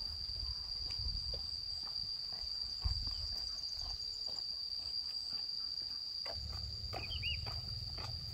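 A steady, high-pitched insect drone, with scattered light clicks and knocks and a few short chirps near the end.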